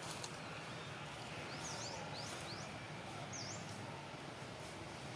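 Steady outdoor background noise with a few short, high chirps: several in quick succession about two seconds in and one more about three and a half seconds in.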